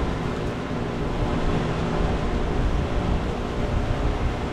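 Strong gusting wind buffeting the microphone, a steady low rumble that rises and falls without a break.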